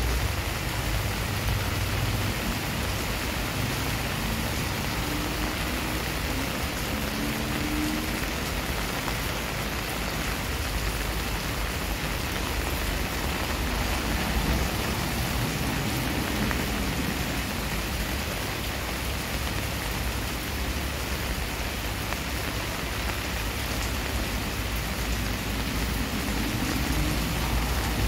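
Steady rain pouring onto a water-covered paved driveway and garden foliage, an even hiss of splashing drops.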